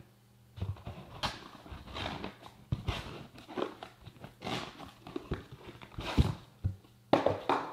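Cardboard shipping box and its cardboard insert being handled by a gloved hand: irregular rustling, scraping and knocking of the cardboard.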